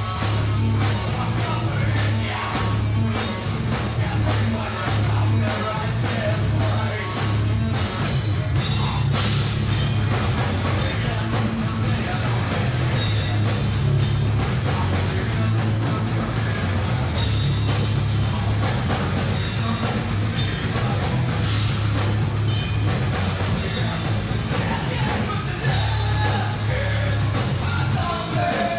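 An alternative metal band playing live: heavy guitar riffs over a loud bass line and a drum kit, with some singing.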